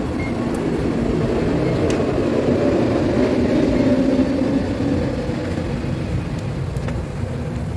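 A steady low rumble that swells about halfway through and then eases off, with a few faint clicks.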